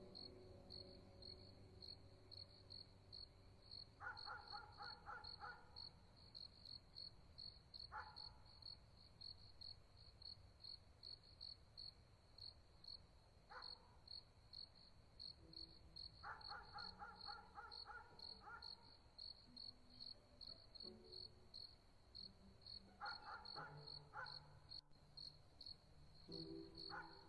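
Quiet ambient background music of soft held notes, with a steady cricket-like chirping at about four chirps a second and a few short trills of higher notes.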